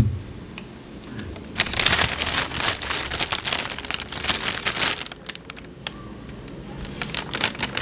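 Packaging being handled and crinkling. The crinkling is loudest from about a second and a half in until about five seconds in, eases off, and picks up again near the end.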